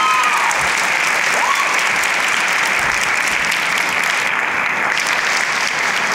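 Audience applauding steadily at the end of a talk, with a short whoop or cheer near the start.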